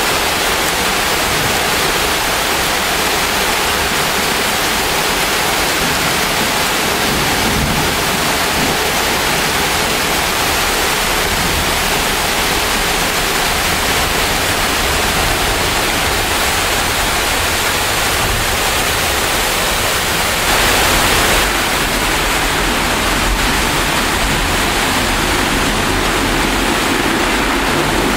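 Torrential, wind-driven rain pouring down in a steady loud rush, with a brief louder surge about two-thirds of the way in.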